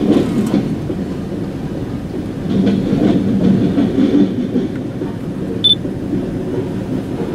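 Freight cars rolling over a road grade crossing: a steady rumble of steel wheels on rail, with one brief high-pitched squeak a little over two-thirds of the way through.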